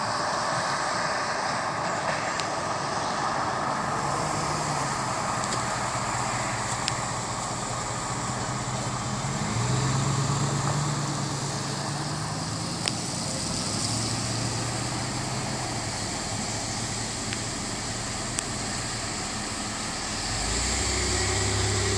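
Steady motor-vehicle noise: a low engine hum that wavers and swells around the middle, over a constant hiss.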